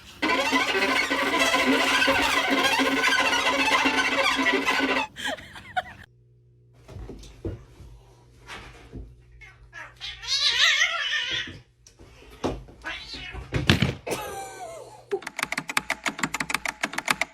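A cat meowing and yowling in a wavering voice, with a loud drawn-out stretch at the start and a run of quick sharp taps near the end.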